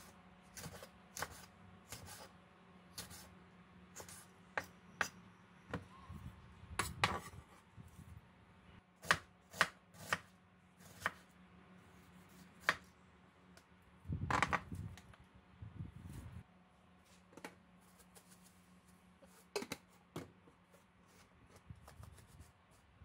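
Kitchen knife slicing green chili peppers and then an onion on a wooden cutting board: irregular sharp knocks of the blade on the board, with a longer stretch of cutting about fourteen seconds in.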